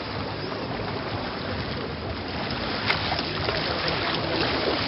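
Water rushing and splashing steadily against the hull and bamboo outrigger of a paraw sailboat under way, with a single sharp click about three seconds in.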